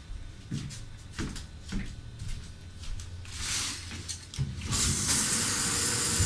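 A few light knocks and clicks, then a shower is turned on: from about five seconds in, water sprays with a steady hiss.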